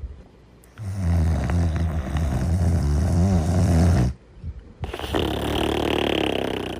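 Snoring in deep sleep: one long, low, buzzing snore lasting about three seconds, then after a short pause a breathier, airier snore.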